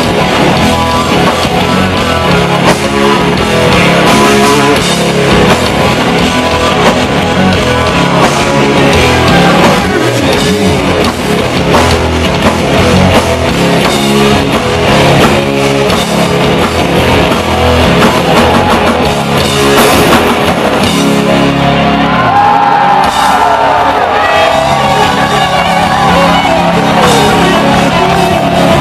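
Live southern rock band playing loud, with electric guitars, bass and drums.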